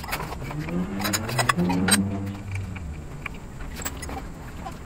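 Metal clinks and clicks from a hex wrench and the blade's arbor bolt and parts being handled while the blade of a Makita 10-inch miter saw is taken off. Behind them a passing engine hum rises and then falls over about two and a half seconds.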